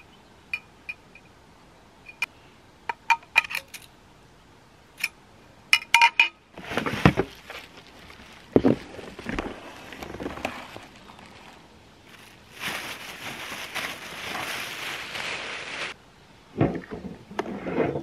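Two chrome-plated metal suction tubes clinking lightly against each other as they are handled: a run of short, ringing metallic clinks. After that comes a longer stretch of cardboard and plastic wrapping rustling and scraping as the contents are lifted out of the box, then a couple of knocks near the end.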